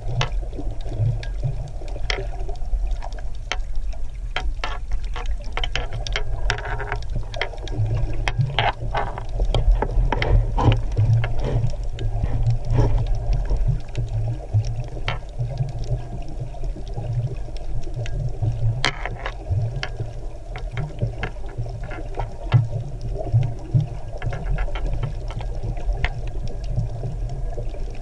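Underwater sound heard through a camera housing: a steady low rumble of moving water, with many scattered sharp clicks and crackles.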